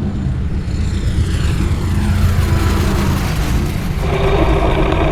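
The 1909 Lorraine-Dietrich Grand Prix car's 16.4-litre inline-four engine running loud and deep at low revs. A falling tone sweeps down through the middle, and a steadier, higher engine note joins near the end.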